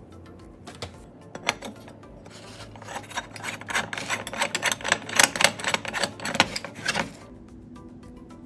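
Metal stovetop coffee maker being screwed together, its upper part turned onto the coffee-filled base: a quick run of rasping, clicking scrapes from the threads that starts about two seconds in, grows louder and stops shortly before the end.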